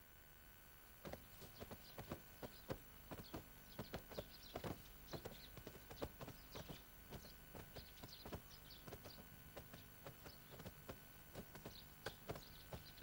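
Faint, irregular clacking footsteps of several people walking on stone, starting about a second in, with small high bird chirps among them.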